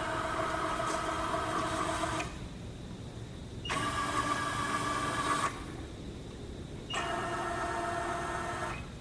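Webb 3VH ProtoTrak CNC milling machine running in three bursts of about two seconds each, a steady whine of several tones that starts and stops abruptly, with short pauses between.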